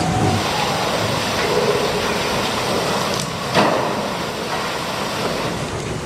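Played-back recording of a reported mysterious sound heard from below ground: a steady noisy roar with a brief faint tone, and one sharp bang about three and a half seconds in.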